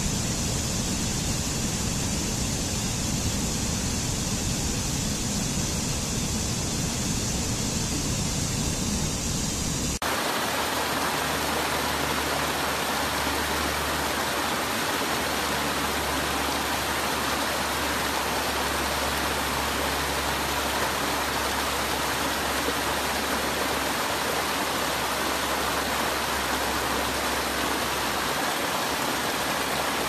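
Rushing water of a mountain stream cascading over rocks and small falls, a steady full rush. About ten seconds in it cuts to a different cascade, thinner in the low end and brighter and splashier.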